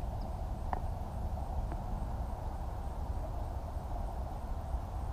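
Quiet outdoor ambience: a steady low rumble and a soft haze of background noise, with two faint clicks about one and two seconds in.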